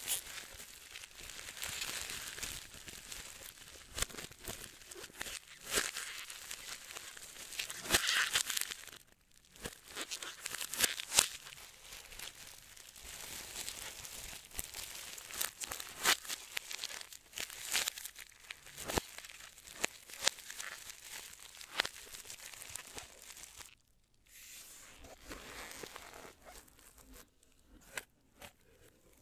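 Packaging being handled: crinkling and tearing of wrapping, with scattered small taps and clicks and two short pauses.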